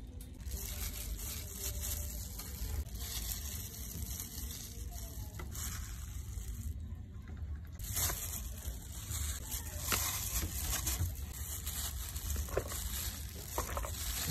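Gloved hand kneading sliced raw beef in a plastic tub: plastic glove rustling and wet squishing, with a few light knocks against the tub, over a steady high hiss. The handling starts about halfway through.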